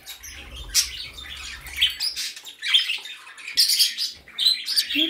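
A room full of small pet birds (budgies, parakeets, cockatiels and canaries) chirping and squawking over one another in quick, overlapping short calls. A low rumble runs under the calls for the first couple of seconds.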